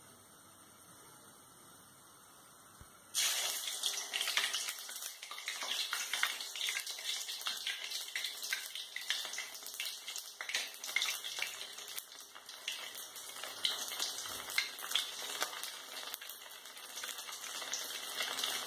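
A water-dipped, potato-stuffed bread roll deep-frying in hot oil, sizzling and crackling densely. The sizzling starts suddenly about three seconds in, after near quiet, and keeps going.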